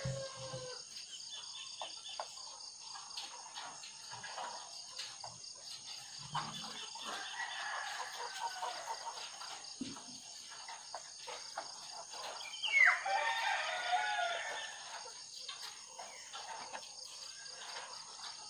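Caged white laying hens calling, with one louder, drawn-out call about 13 seconds in.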